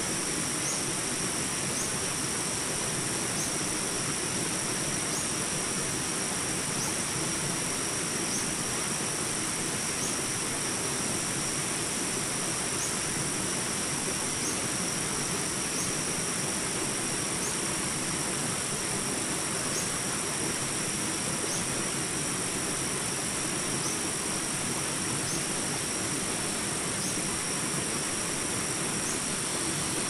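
Shallow stream water rushing and splashing over rocks in small rapids, a steady, unbroken rush. A thin steady high-pitched drone sits above it, with a short high chirp recurring about every one and a half to two seconds.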